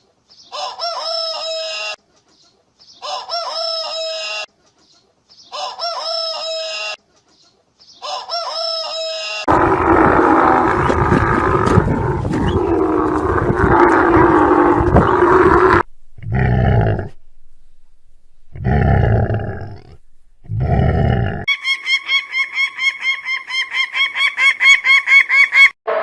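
A series of different animal calls: four similar pitched calls of about a second and a half, evenly spaced, then several seconds of dense noisy calling, three short low calls, and near the end a fast pulsing call of about four pulses a second.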